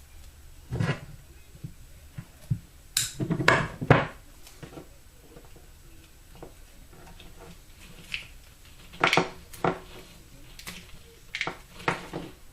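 Scotch Super 33+ vinyl electrical tape pulled off the roll and wrapped around a wiring harness loom, in a few short rasping pulls with handling clatter between them.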